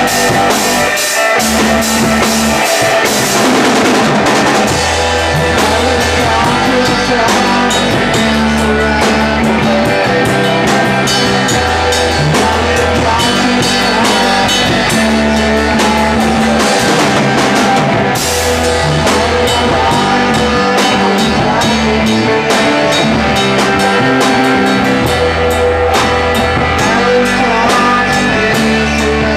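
Rock music with a full drum kit, bass and guitar playing at a steady beat.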